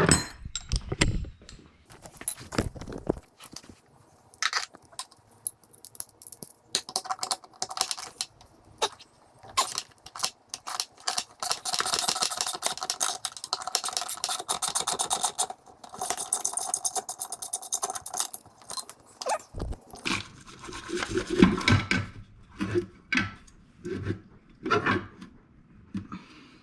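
Metal hand tools clinking, scraping and clicking against the metal drive parts of a jet ski as a stuck part is worked loose. A long run of quick clicks comes about halfway through, followed by a few louder knocks.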